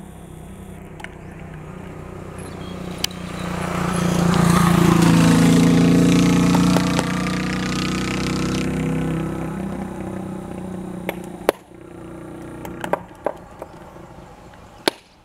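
A motor vehicle passing by. Its engine grows louder over about four seconds, drops slightly in pitch as it goes past, then fades away. A few sharp clicks follow near the end.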